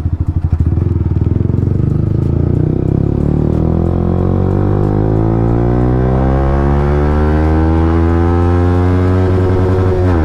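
Yamaha R15 M's single-cylinder engine through a loud aftermarket SC Project exhaust, heard from the rider's seat while riding. Its note starts choppy, climbs steadily as the bike accelerates in gear, then drops abruptly near the end at an upshift.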